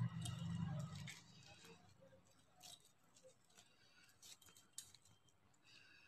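Plastic pearl beads clicking and rattling lightly as hands work a beaded strand, in scattered faint ticks. A dull rumble of handling sits under the clicks in the first second.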